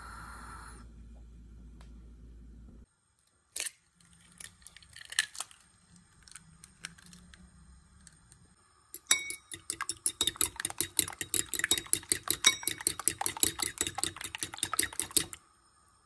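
A raw egg being beaten on a ceramic plate with a metal utensil: rapid, even clinking of metal on china, about six strokes a second, over the last six seconds or so. Before it comes the low steady rush of a gas burner under a covered pot, then a few scattered taps and clicks.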